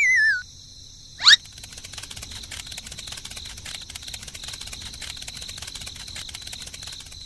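Cartoon sound effects: a wavering whistle slides down in pitch and stops just after the start, and a quick rising swoosh comes about a second in. After that a steady chirring insect chorus, like crickets, fills the rest, dense rapid ticks over a thin high whine.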